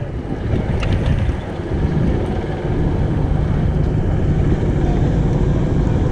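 Steady low wind rumble on the microphone of a handlebar camera while riding along on an electric wheelchair bike attachment, with the ride's road noise under it.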